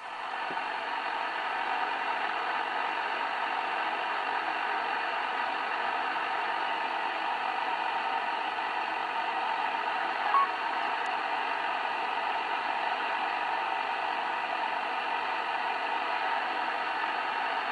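CB radio receiving on lower sideband with no station coming back: a steady hiss of static from the speaker. One short blip about ten seconds in.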